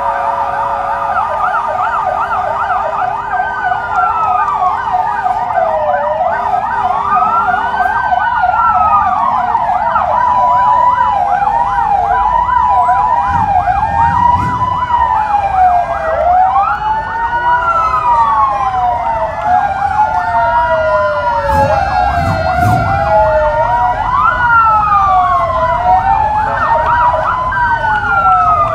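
Several emergency-vehicle sirens sounding at once, fast yelps and slower rising-and-falling wails overlapping without a break. Low engine rumbles swell briefly about halfway through and again a little later.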